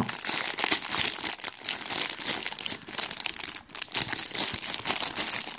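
Shiny black plastic blind bag crinkling as hands squeeze and work it open: a continuous irregular crackle with a couple of brief lulls.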